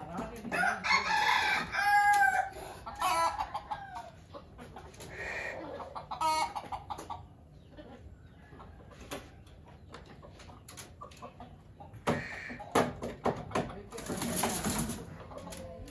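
Rooster crowing, one long crow starting about a second in, followed by a shorter call around six seconds, with clucking from the coop. Knocks and rustling near the end.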